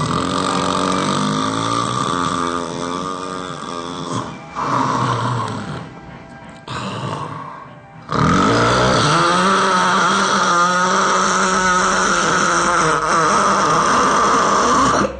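Loud snoring with music over it. It drops to a quieter stretch about six seconds in and comes back loud about two seconds later.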